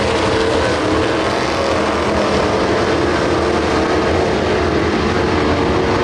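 A pack of dirt-track stock cars racing at full throttle. Several V8-style engines blend into one loud, steady drone whose pitch wavers slightly as the cars go through the turn.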